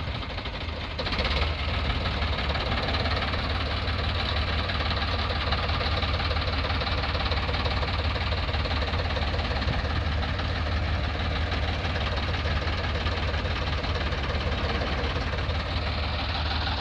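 Diesel farm tractor engines running steadily under load, pulling a tractor stuck in deep mud on a tow rope. The sound grows louder about a second in and then holds even.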